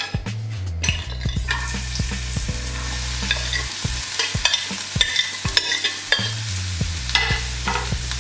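Chopped onion sizzling in hot olive oil in a non-stick frying pan. A knife scrapes the pieces off the cutting board and then stirs them in the pan, making frequent light clicks and taps. The sizzle starts about a second in as the onion hits the oil.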